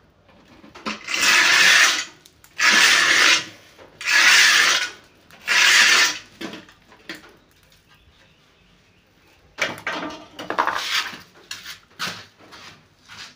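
Scraping strokes on a rough concrete wall as a line is drawn along a spirit level: four long rasping strokes of about a second each, then, after a pause, a run of shorter, quieter scratches.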